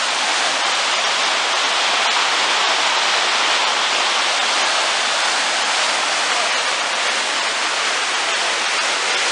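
Muddy floodwater rushing through river rapids over boulders: a steady, unbroken rush of white water.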